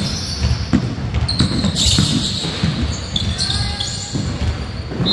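Basketball game on an indoor court: the ball bouncing, with short high squeaks and players' voices, echoing in a large hall.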